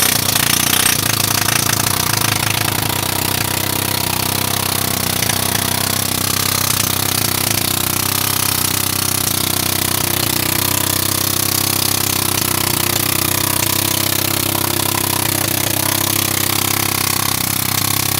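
Jackhammer hammering continuously on sheet pile during surface preparation, a steady loud racket with no pauses.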